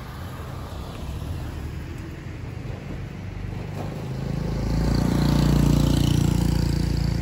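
Road vehicles passing on a street. After a car goes by, an engine hum grows louder from a little past halfway and stays loud to the end.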